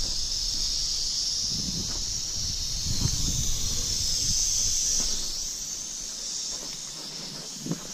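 Timber rattlesnake rattling: a steady high buzz that eases a little after about five seconds. Footsteps crunch through dry leaf litter underneath.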